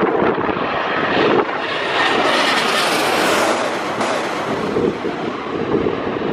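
Jet airliner's engines on final approach, passing low overhead: a loud rushing roar that swells to its loudest and hissiest a few seconds in, then eases off as the plane moves away.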